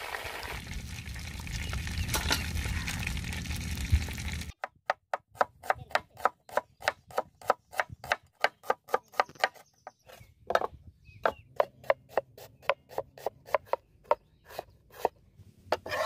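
Quail deep-frying in hot oil in an iron kadai, a steady sizzle. About four and a half seconds in, after a cut, a cleaver starts chopping small red onions on a wooden board: a run of sharp knocks, about three or four a second, with a couple of brief pauses.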